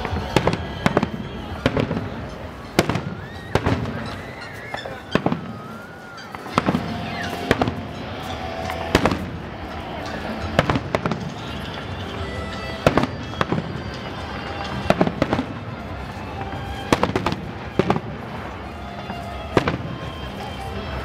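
Fireworks exploding in a steady string of sharp bangs, about one a second, some coming in quick pairs.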